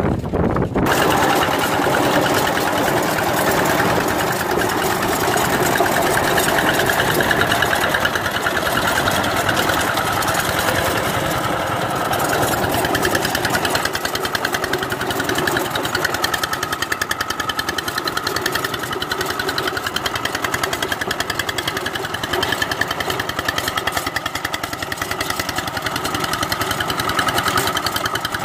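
Walk-behind two-wheel tractor's single-cylinder diesel engine running steadily under load, with a rapid knocking beat, as its rotary tiller churns wet paddy soil. It comes in about a second in and carries on without a break.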